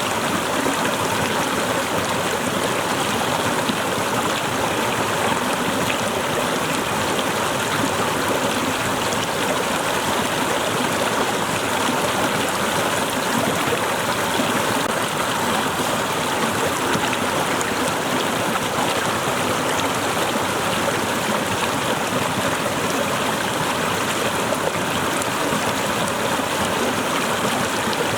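Water of a small waterfall splashing and flowing steadily, an even rushing noise with fine trickling detail.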